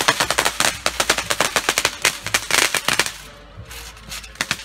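A rapid, irregular run of loud sharp cracks and pops that stops about three seconds in and starts again near the end.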